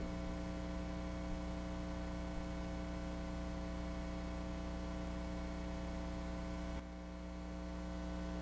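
Steady electrical hum with a faint hiss, the recording's noise floor with no music or speech over it. The hum dips suddenly about seven seconds in and slowly comes back up.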